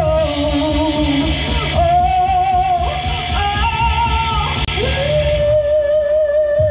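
A female vocalist sings live into a handheld microphone over a recorded backing track. She sings wordless runs with vibrato, and about five seconds in a long steady note with vibrato takes over.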